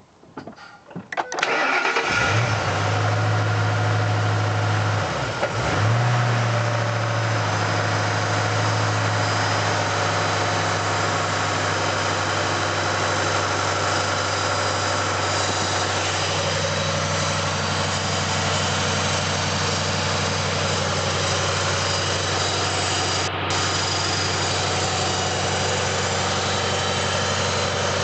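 2007 Ford Mustang GT's 4.6-litre V8 cranked and started, catching about two seconds in and settling into a steady idle. The idle carries the noise of a failing water pump.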